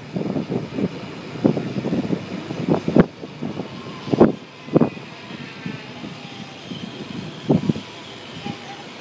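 Bicycle rolling over street asphalt, rattling with irregular knocks and a few sharper thumps. The rattling is busiest in the first half and calmer toward the end.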